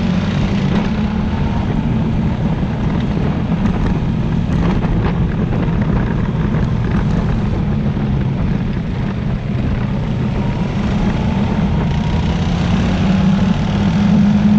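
ATV (quad bike) engine running steadily while riding. Its note climbs and grows louder near the end.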